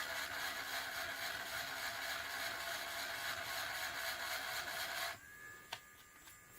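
Low-speed electric sander on a low setting, running steadily while it sands down hardened modelling putty. It cuts off suddenly about five seconds in, followed by a single short click.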